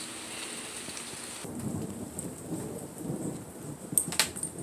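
Light rain falling steadily, with a low rumble of thunder building from about a second and a half in. Two sharp clicks come near the end.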